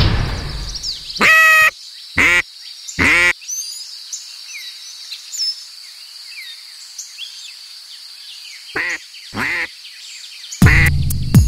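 Duck quacks: three loud quacks in the first few seconds, a quiet stretch, then three more near the end. Faint high bird chirps run underneath.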